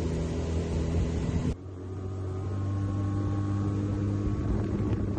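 Small boat's outboard motor running steadily, a low drone with a steady hum. About a second and a half in the sound cuts abruptly to a quieter drone of the same kind, which slowly grows louder.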